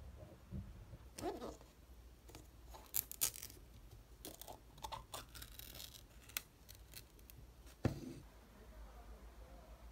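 Foil lid being peeled off a plastic yogurt cup: scattered crinkling and tearing noises, with a sharp click near the end.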